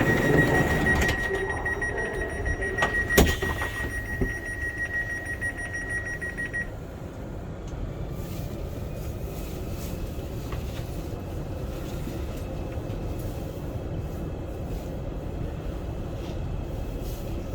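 Intercity Express train pulling out of the station, its running noise fading over the first few seconds. A steady high tone sounds until it cuts off suddenly about seven seconds in, and there is a sharp clack about three seconds in. A steady low rumble follows.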